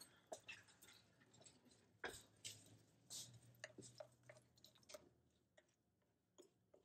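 Faint wet squelches and clicks of a bare hand mixing chopped vegetables and oil in a clay tagine, an irregular quick series that thins out after about five seconds.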